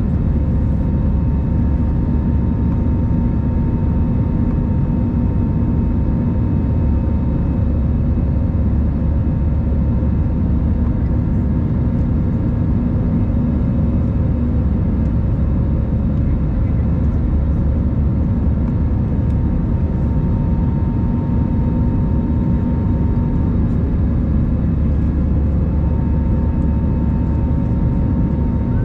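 Airbus A321 cabin noise heard from a passenger seat: a loud, steady rush of engine and airflow noise with a few steady humming engine tones on top.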